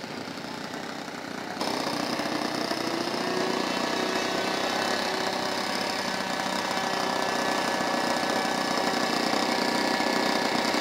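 Four-stroke glow engine (Saito 72) of a radio-controlled model Spitfire running at low throttle while the model taxis, a rapid steady firing. It becomes louder about a second and a half in.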